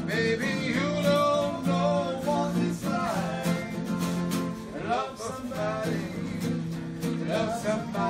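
A man singing a song in English, accompanied by a strummed acoustic guitar.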